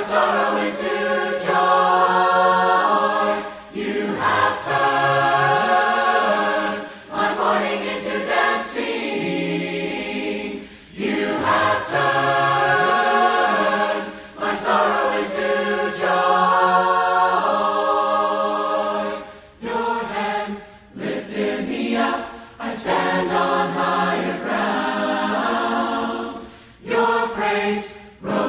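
A Christian worship song playing: sung vocals over backing music, in phrases of long held notes with short breaks between them.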